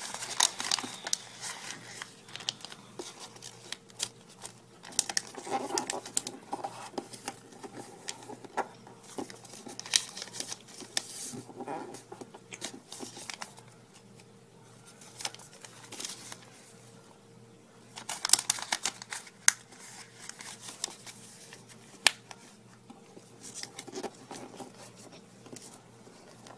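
Origami paper being folded and pressed flat by hand: irregular rustling, crinkling and crackling of paper, with sharp snaps now and then and a dense burst of crackles about two-thirds of the way through.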